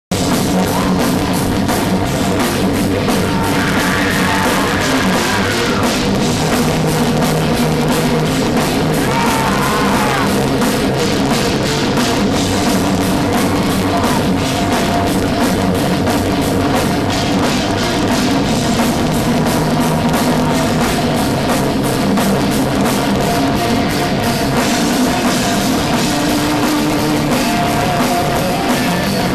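Heavy metal band playing live, with distorted electric guitars, bass and drum kit, as heard from the crowd on a fan's camera microphone.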